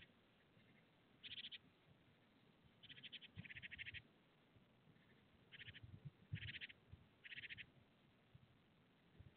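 Faint short trilling animal calls, each under half a second, repeated about six times at uneven gaps, with a few soft low thumps in between.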